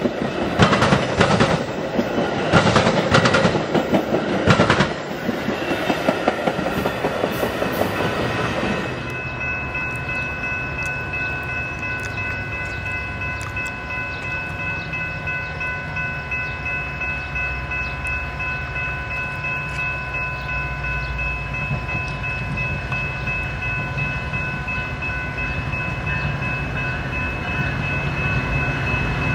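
Metra bilevel commuter coaches rolling past, their wheels clacking loudly over the rail joints for the first few seconds. From about nine seconds in, a grade-crossing bell rings steadily in an even rhythm, while the low rumble of an approaching locomotive grows near the end.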